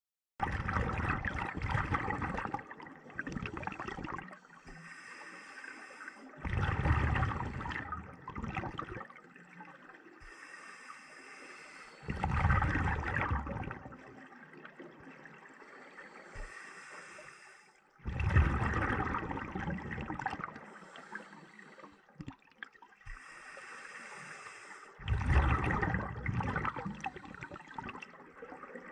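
Scuba diver breathing through a regulator underwater: a bubbling rush of exhaled air about every six seconds, five times, with a thin hiss of inhalation between the breaths.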